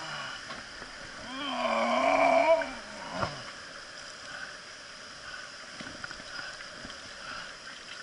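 A man's long wordless yell, about a second and a half, its pitch rising and falling, over the steady rush of water. A single knock follows shortly after.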